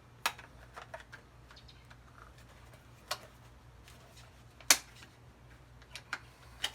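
Scattered sharp clicks and knocks, about eight at irregular spacing with the loudest a little under five seconds in, as force is put on a strip of aluminum glued to wood with Titebond II to test the glue joint; the joint holds.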